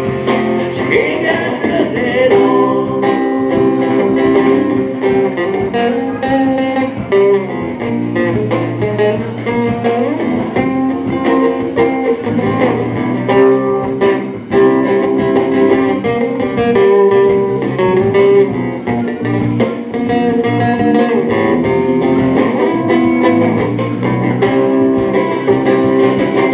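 Live band playing a song: guitar chords over bass and a steadily beating drum kit.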